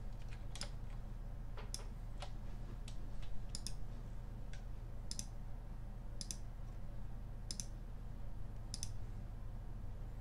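Computer mouse button clicking about a dozen times, irregularly, roughly once a second, several clicks doubled as press and release, over a steady low hum.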